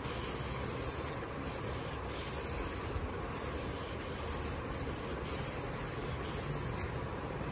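Cloth rag rubbing wood stain over a poplar board, a steady rubbing of repeated back-and-forth wiping strokes.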